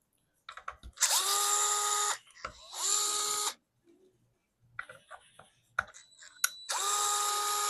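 Small electric screwdriver running in three short bursts to back out screws. Each burst spins up quickly to a steady whine; the last one is the longest. Light clicks and taps of handling come in between.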